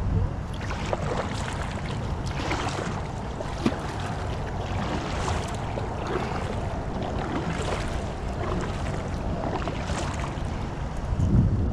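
Double-bladed kayak paddle dipping and splashing into the water in strokes about one to two seconds apart, over a steady low rumble of wind on the microphone. A brief low bump near the end.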